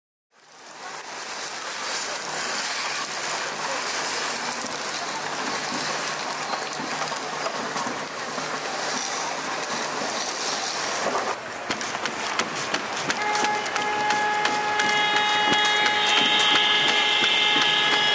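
Outdoor street ambience: a steady noisy hiss with faint ticks and knocks fades in at the start. About two-thirds of the way through, several steady held tones come in at different pitches and grow louder.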